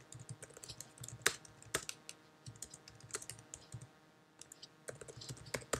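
Typing on a computer keyboard: irregular key clicks, with a short pause about four seconds in.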